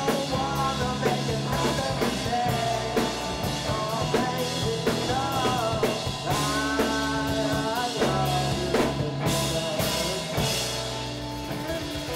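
Live rock band playing: a young male singer at the microphone over electric guitars, bass and a drum kit. The music eases off in the last couple of seconds.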